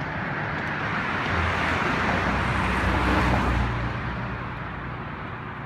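Road traffic on the bridge: a vehicle passes, its tyre and engine noise swelling with a low rumble to a peak about three seconds in and then fading.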